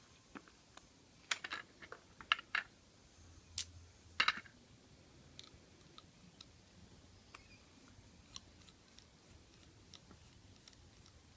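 Sharp metallic clicks and taps of a screwdriver and small padlock parts being handled while a Lockwood padlock is taken apart, busiest in the first four or five seconds, then only faint scattered ticks.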